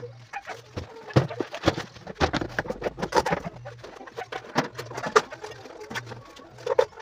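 Objects knocking and clattering as things are handled and shifted about, in a run of irregular sharp knocks and clicks. A low pulsing sound repeats about one and a half times a second underneath.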